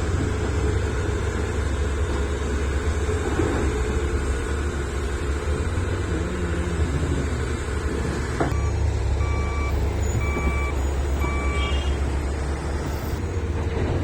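Heavy diesel earthmoving machinery running steadily with a deep, low rumble. A little past halfway, a reversing alarm beeps three times, about once a second.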